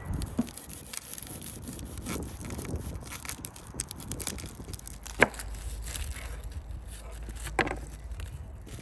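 Cleaver cutting the root end off a head of garlic on a wooden cutting board, with the papery garlic skin crackling and rustling under the hands. A sharp knock of the blade on the board about five seconds in, and a softer knock a couple of seconds later.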